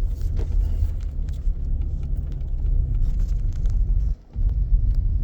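Low, steady rumble of a car driving through deep snow, heard from inside the cabin. The rumble drops out for a moment about four seconds in.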